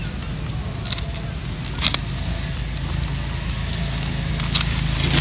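Cardboard phone box handled and pried open by hand, giving a few short clicks and ticks, the loudest a quick double click about two seconds in, over a steady low rumble.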